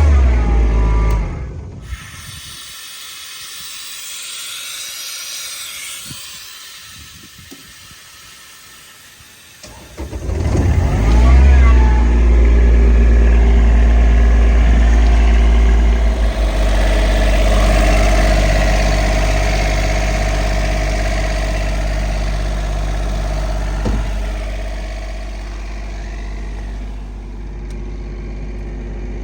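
Denyo DIS70SB diesel engine compressor. A loud low hum cuts off within the first two seconds and a quieter hiss follows; about ten seconds in, the engine starts and then runs steadily for the rest.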